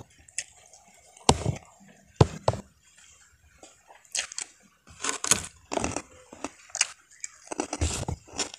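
Close-miked chewing of a mouthful of rice and crisp fried food, with two sharp crunches about one and two seconds in, then a quick run of crunching chews from about four seconds on.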